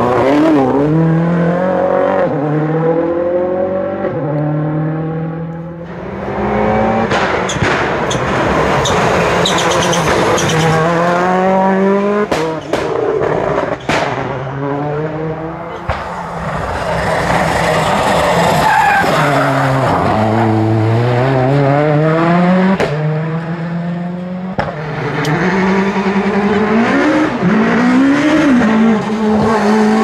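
Rally cars driven hard through tarmac hairpins one after another, a Ford Focus WRC first and a Peugeot 306 Maxi near the end. Their engines rev up and drop back through quick gear changes, with sharp cracks on lifting off the throttle.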